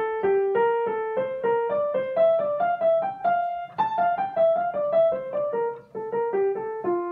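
Piano playing a single-note scale pattern in F major at about four notes a second. The line climbs and comes back down, then ends on a held low note.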